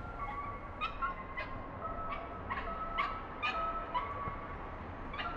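Mobile phone going off with a tune of short electronic beeping notes at a few different pitches, each note starting with a click.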